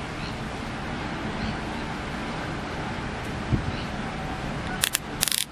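Steady low rumble of the ferry MV Cotentin passing close by, mixed with wind on the microphone. Two sharp crackles near the end.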